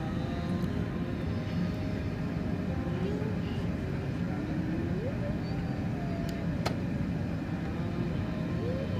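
Steady roar of an Airbus A380's Rolls-Royce Trent 900 engines and airflow as heard inside the cabin from a window seat over the wing.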